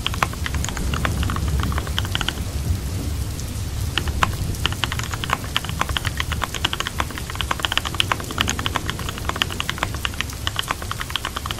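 Computer keyboard typing in quick irregular runs of keystrokes over steady rain with a low rumble underneath. The typing pauses briefly about two seconds in, then carries on.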